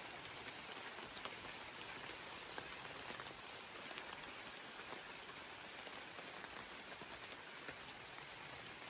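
Steady rain falling, with many scattered drops landing close by as brief ticks.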